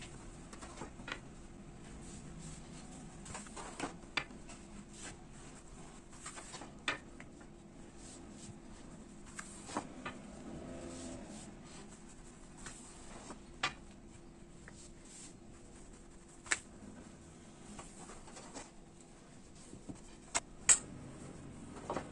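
A long thin rolling pin working a thin sheet of dough wrapped around it on a board: soft rubbing and rolling, with scattered sharp taps and clicks every few seconds, the loudest near the end.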